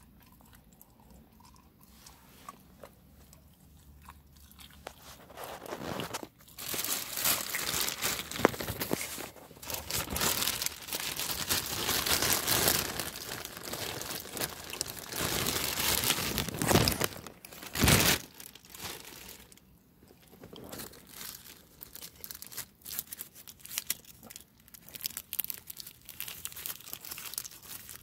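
Crinkling and crunching of plastic food packaging from a tuna-and-crackers snack kit. It is dense and loud from about six seconds in until a sharp burst near eighteen seconds, then thins to scattered rustles and crunches.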